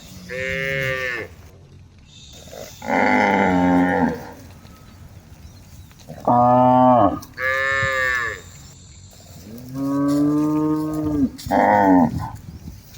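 Several cattle mooing one after another: about six calls, each lasting a second or so, with short pauses between them.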